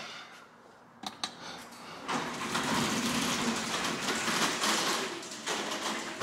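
A couple of sharp clicks about a second in, then a garage door opener runs steadily as the garage door closes.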